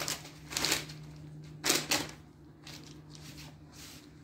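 Baking paper rustling and crinkling as a sheet of ready-rolled puff pastry is unrolled and smoothed flat by hand, in a few short bursts, over a steady low hum.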